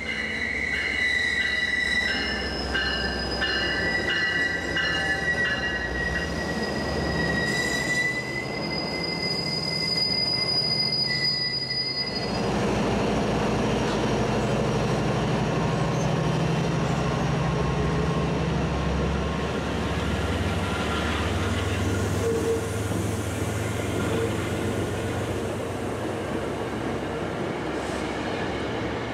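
MBTA commuter train with a diesel locomotive pulling into the station: a high, steady squeal from the wheels for about the first twelve seconds, which stops abruptly. Then the locomotive's diesel engine drones past, followed by the rumble of the coaches rolling by.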